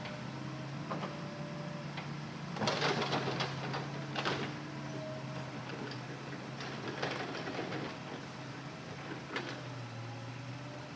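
Hitachi Zaxis excavator's diesel engine running at a steady hum, with bursts of rattling and clattering about three and four seconds in and again near seven seconds as it works loading logs.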